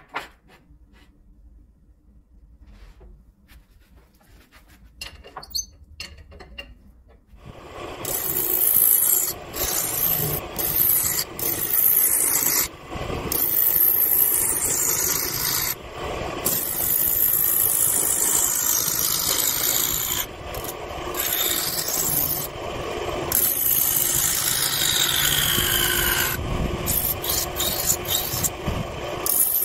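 A hand-held turning tool cutting a spinning wooden blank on a wood lathe makes a loud scraping, shaving sound from about seven seconds in. It breaks off briefly several times as the tool is lifted from the wood.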